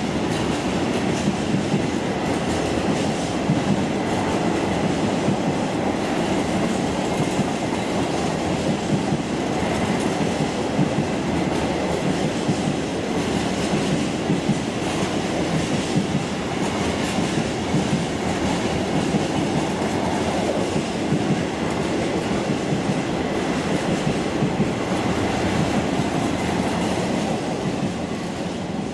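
Empty freight flat wagons rolling steadily past, with a dense rumble and repeated wheel beats over the rail joints. The last wagon goes by near the end and the sound falls away.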